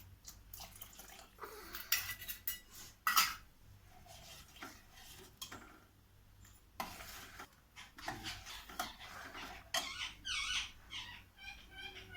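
A metal spoon clinking and scraping against a cooking pot as tomato soup is stirred, in scattered irregular knocks. Near the end there is a quick run of short high-pitched chirps.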